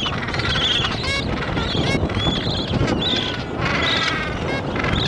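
A gentoo penguin colony calling: many short, overlapping high calls, several a second, some gliding and one rapidly pulsed, over steady wind noise on the microphone.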